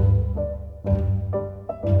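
Background music: a slow instrumental passage of piano with low strings, no singing.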